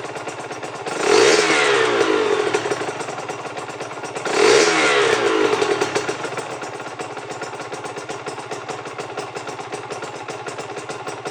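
Aprilia RS 125's single-cylinder two-stroke engine, through an aftermarket Giannelli exhaust, revved twice, about a second in and again around four and a half seconds, each rev rising and falling away, then idling steadily. The engine is still on the restricted stock ECU, which struggles with this freer-flowing exhaust.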